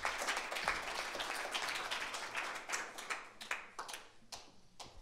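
Small audience applauding, dense at first and dying away to a few scattered claps near the end.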